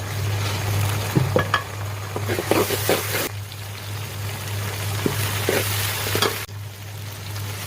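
Food sizzling in a hot pan while it is stirred, with scattered clicks and knocks of the utensil against the pan.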